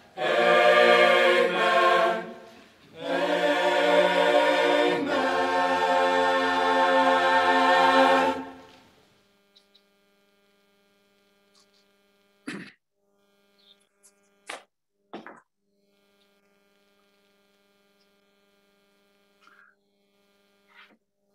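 Chamber choir singing the last phrase of a hymn, ending on a long held chord that fades out about eight seconds in. After that there is a steady electrical hum, with a few short clicks.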